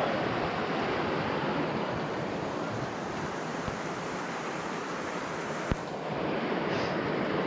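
Small waterfall pouring into a creek: a steady rush of falling water.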